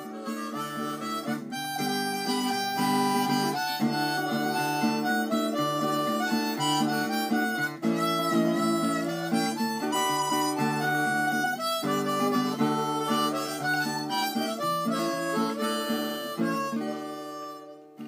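Outro music: harmonica over acoustic guitar, fading out near the end.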